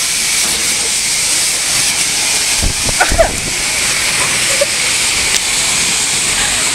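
Car wash high-pressure spray gun hissing steadily as its water jet runs. A couple of brief knocks come about three seconds in.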